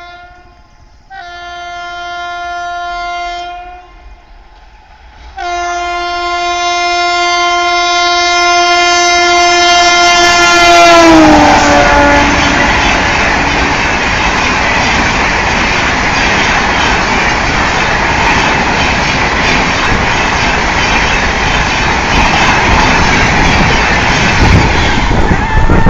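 WAP-7 electric locomotive horn: a short blast, then a long blast that drops in pitch as the locomotive passes at about 130 km/h. It is followed by the loud, steady rush and clatter of the Howrah Rajdhani Express coaches speeding past.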